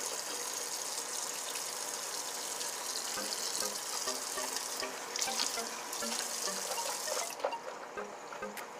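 Bathroom tap running into the sink in a steady stream. Near the end the flow stops, leaving scattered drips and small splashes.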